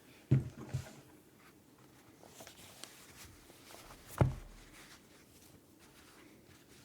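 Brutal60 custom 60% mechanical keyboard with lubed Holy Panda tactile switches, an FR4 plate and GMK keycaps, typed on sparsely: scattered soft keystrokes, with two louder, deeper thuds about a third of a second in and about four seconds in.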